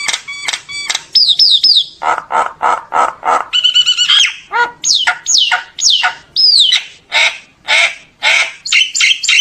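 Common myna singing a varied, loud song: clear downward-sliding whistles mixed with harsh, rasping squawks and quick clicking notes.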